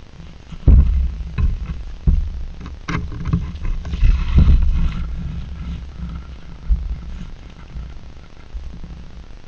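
Black bear cubs rubbing their backs against a tree trunk: irregular low thumps and rumbles, with a scratchy rasp of bark about four seconds in.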